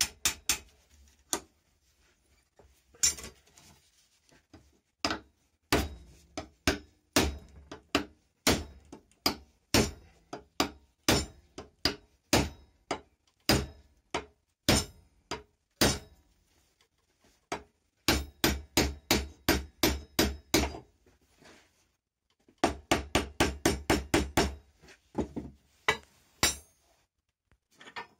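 Hand hammer striking red-hot steel clamped in a vise: sharp metal-on-metal blows, first spaced out evenly, then in two fast runs of about four blows a second in the second half.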